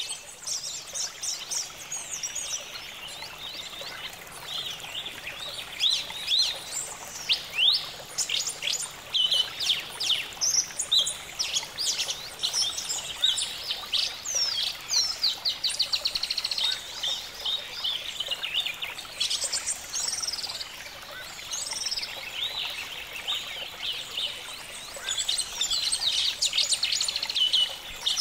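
Several birds calling and singing at once: a busy mix of short chirps, whistled sweeps and fast trills, over a faint steady background hiss.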